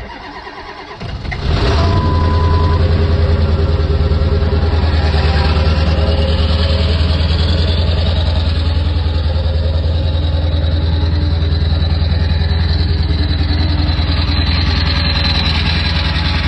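Ford 7.3 Powerstroke V8 turbo-diesel cold-starting: the starter cranks for about a second and a half, the engine catches and then idles loudly and steadily. A short beep sounds just after it fires.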